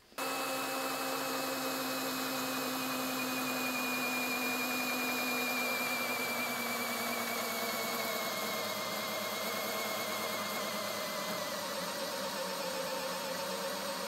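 CAT DX12 cordless drill in drill mode, running continuously against a dynamometer's increasing load. Its motor whine drifts slowly down in pitch as the load builds and the speed falls.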